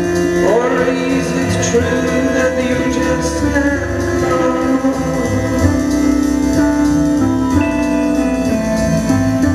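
Live electronic music: sustained organ-like keyboard chords over a moving low bass line, with singing and a sliding tone that rises about half a second in.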